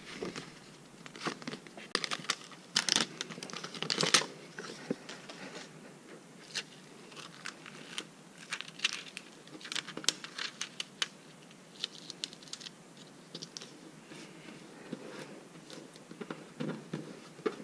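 Plastic sticker sheet crinkling and crackling as stickers are peeled off their backing, in scattered short rustles, densest in the first few seconds, then lighter rubs and taps as a sticker is pressed and smoothed onto a fridge door.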